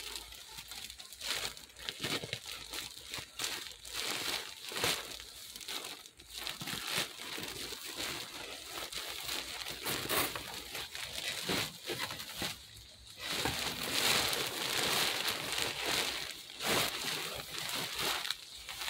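Crinkling and rustling as a folded silver quilted sauna bag and its plastic wrapping are handled and unfolded, a continuous crackly sound of many small crinkles.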